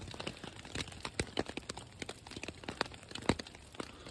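Nylon tent fabric crinkling, with a scatter of irregular sharp ticks and snaps.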